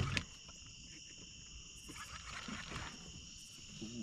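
Steady chorus of night insects, a constant high-pitched chirring in several bands, with a short knock right at the start.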